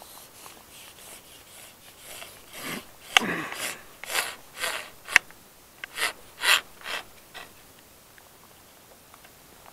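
Scratchy rubbing and rustling close to the microphone, like a sleeve or glove brushing past: a run of about a dozen short strokes with two sharp clicks, starting about two seconds in and stopping around seven and a half seconds.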